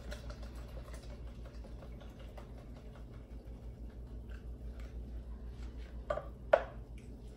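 Red chile sauce being worked through a plastic strainer into a pot on the stove: faint scraping and pattering over a low steady hum. Near the end come two sharp knocks as the strainer bumps the pot, the second louder than the first.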